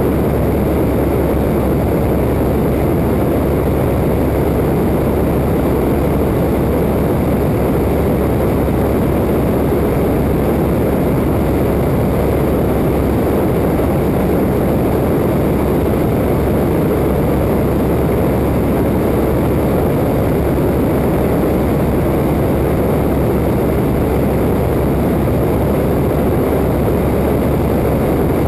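Waco open-cockpit biplane in cruising flight: steady drone of the engine and propeller mixed with heavy wind rush over a microphone mounted outside on the wing.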